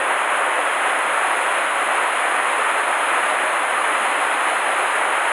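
Mountain stream flowing over rocks and a small cascade: a steady, even rush of water.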